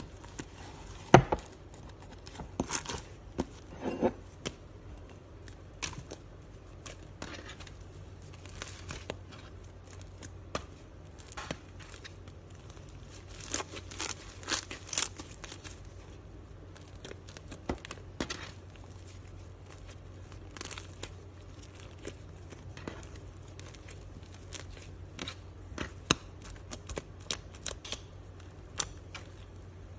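Slime being handled, making irregular small pops and crackles.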